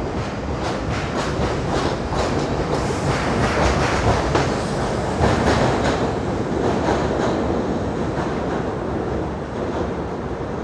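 New York City subway train passing, with runs of wheel clicks over the rail joints. The rumble swells toward the middle and eases off near the end.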